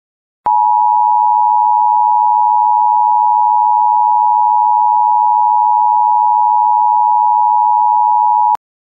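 Emergency Alert System attention signal: two close, steady tones sounding together for about eight seconds, starting about half a second in and cutting off sharply. It is the alarm that heralds an emergency broadcast.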